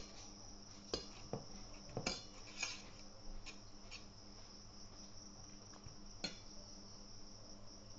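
A steel spoon clinking and scraping against a steel bowl as thick yogurt starter is beaten smooth, a few scattered clinks over the first six seconds. Crickets chirr steadily and high-pitched in the background.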